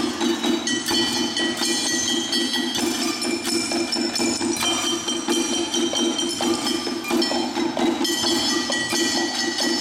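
Kitchen-utensil percussion: metal cookware struck in a fast, continuous rhythm, with metallic clanks and ringing over a steady low drone.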